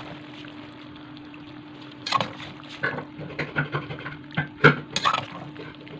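Serving spoon scraping and knocking against a pan as cooked macaroni is scooped out and dropped into a ceramic serving dish: a quick, irregular run of clicks and taps starting about two seconds in. A steady low hum runs underneath.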